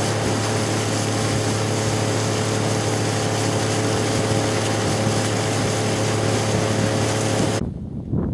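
A boat's motor running at a steady pace with a constant low hum, stopping suddenly near the end.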